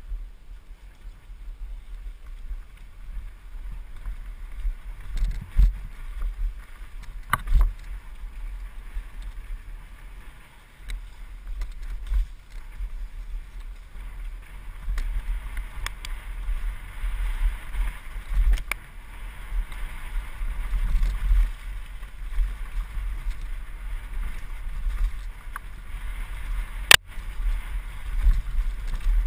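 Mountain bike descending a dirt forest trail: tyres rolling over the dirt and the bike rattling, under gusty wind rumble on the microphone, with a few sharp knocks from bumps, the sharpest near the end.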